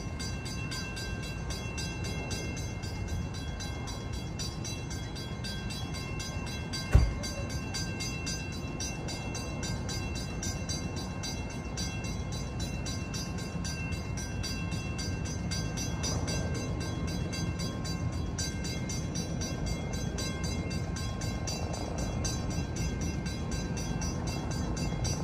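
Distant Long Island Rail Road train approaching: a steady low rumble with faint steady tones above it, slowly growing louder. A single sharp knock about seven seconds in.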